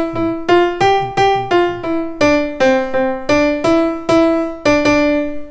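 Piano playing a simple tune one note at a time, about fifteen plain notes at two or three a second, the way a beginner picks out a melody.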